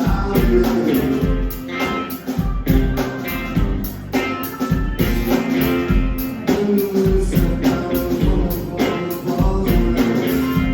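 Live rock band playing a song, with guitar and a steady beat.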